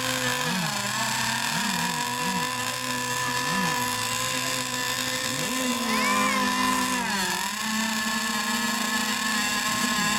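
Several radio-controlled model racing boats' motors running together on the water, with a steady whine under quick throttle blips. About six seconds in, one motor's pitch rises and then drops away.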